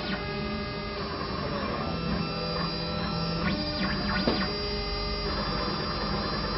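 ZK-3030 mini CNC router running as it engraves metal: a steady mix of motor tones from the spindle and stepper drives. The stepper whine sweeps up and back down about three and a half to four and a half seconds in, as the axes change speed.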